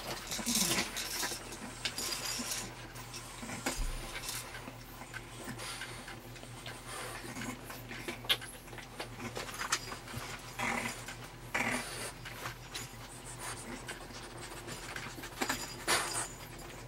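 French bulldog puppies playing close to the microphone: irregular scuffling and rustling on a blanket, with short scratchy bursts and clicks as they mouth and tussle with each other.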